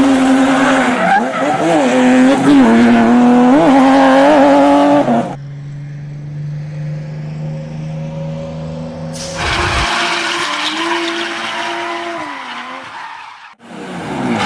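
Revving vehicle engine sounds, the pitch wavering up and down, in spliced pieces: the first cuts off abruptly about five seconds in, a steadier lower hum follows, then the revving returns and breaks off sharply near the end.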